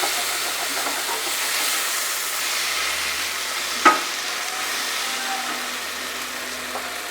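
Tomato and spice masala sizzling steadily as it fries in a pan, with a single sharp knock about four seconds in.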